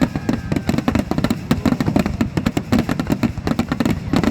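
Dense, rapid barrage of aerial firework shell bursts at a fireworks finale, many bangs a second overlapping into a continuous crackling rumble.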